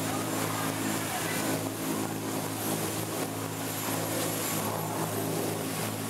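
Passenger boat's engine running with a steady drone, with water rushing along the hull as the boat cruises.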